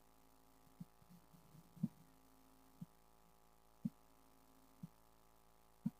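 Near silence: a faint steady hum with a soft low thump about once a second, every other thump a little louder.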